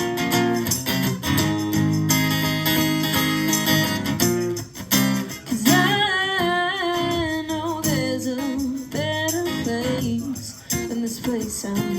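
Live band music: strummed guitar chords, with a singer coming in about six seconds in.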